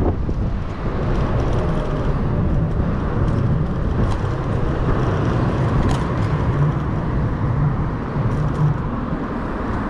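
Steady road-traffic noise from cars passing on a busy city street, a continuous low rumble with no distinct events.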